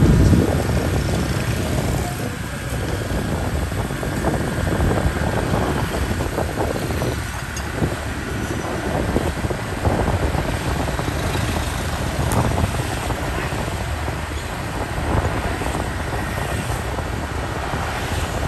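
Vehicle driving along a town street: a steady mix of engine and road noise, with passing traffic.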